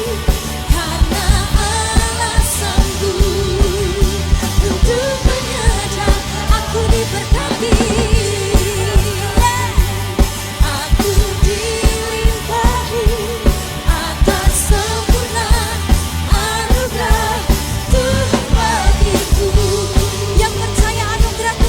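Live church worship band playing a pop-rock praise song, with voices carrying the melody over a steady drum beat.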